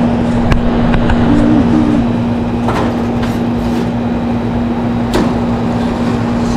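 Steady machine drone with a constant low hum, over which come a few sharp clicks and knocks of metal parts being handled while an air-conditioning condenser is taken apart.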